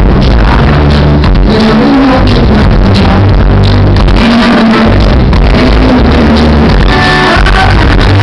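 Live reggae band playing, recorded loudly from the audience, with a heavy pulsing bass line and guitar.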